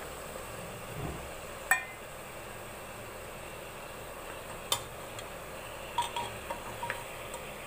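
Metal spoon and bowl clinking against a metal pressure cooker pot while spice powder is tipped onto meat and stirred in: a few sharp clinks, the loudest about a second and a half in, another near five seconds, then a cluster of lighter taps around six to seven seconds, over a steady low hiss.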